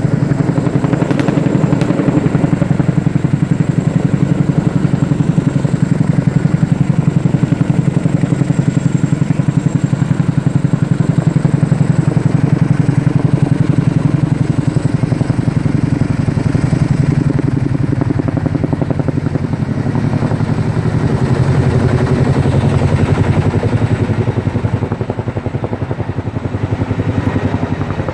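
Helicopter running steadily, its rotor making a fast, even beat, easing a little for a moment near the end.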